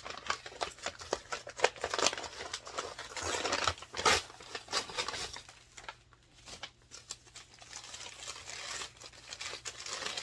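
Packaging crinkling and rustling as it is handled and unwrapped, in irregular bursts, loudest about two and four seconds in.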